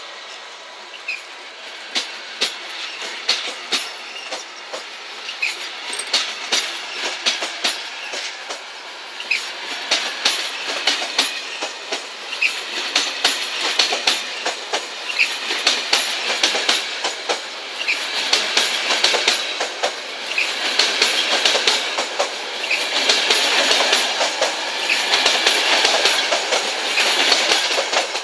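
Passenger coaches of an express train rolling past and pulling out, their wheels clicking over rail joints ever faster and louder as the train gathers speed, with a few short wheel squeals. The noise falls away just at the end as the last coach clears.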